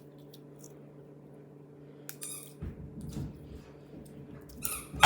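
A clear slime full of plastic beads being stretched and squished by hand, with small clicks of the beads. The handling grows louder about two and a half seconds in and peaks near the end.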